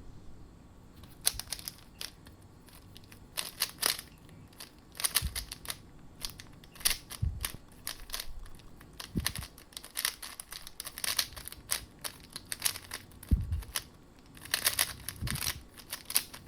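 YuXin Little Magic magnetic speed cube being turned fast in a speedsolve: quick runs of clicking and clacking as its layers snap round, broken by short pauses, with a dense flurry of turns near the end.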